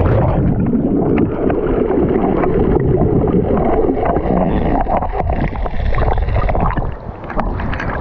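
Seawater splashing and gurgling around the camera as a person gets into the sea; the sound is muffled, with the highs suddenly gone from the start.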